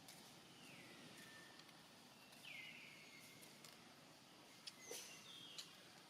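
Two faint, high whistle-like animal calls, each sliding down in pitch and then holding level. A few light clicks follow near the end.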